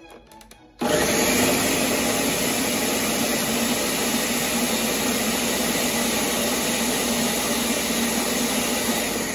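Countertop blender switched on about a second in, its motor running steadily at high speed while it purées a jar of warm roasted vegetables into salsa; it starts winding down right at the end.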